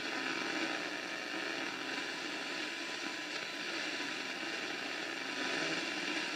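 Steady static hiss from the speaker of a 1950s Zenith C845 tube radio, tuned between stations, with no station coming in.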